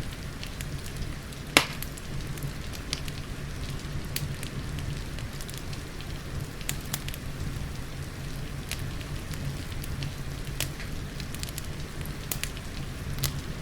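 Wood fire crackling in a fireplace, with scattered sharp pops and one loud pop about a second and a half in, over a steady hiss of rain.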